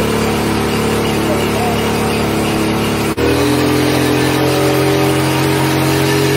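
Small two-stroke moped engine running at steady revs, its rear wheel turning on a roller; the note breaks off for an instant about three seconds in and carries on at a different steady pitch.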